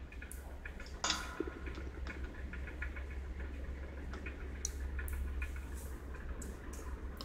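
Small clicks and ticks of a screwdriver working the Phillips screw that holds a Hunter pedestal fan's blade on its motor shaft, along with light knocks against the wire grille, with a sharper click about a second in. A steady low hum runs underneath.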